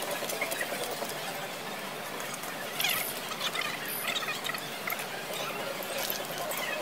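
Restaurant dining noise: a steady background hubbub with short clinks and scrapes of metal cutlery on plates, and brief high squeaks scattered through, the loudest clatter about three seconds in.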